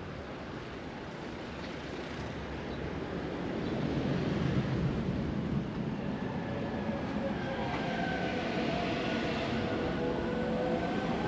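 A large vehicle passing close by: a rumble that grows louder about four seconds in, with a steady whine of several tones over it in the second half.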